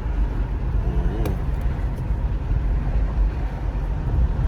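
Steady low rumble of a car on the move with the windows down: engine and road noise, with wind buffeting the microphone.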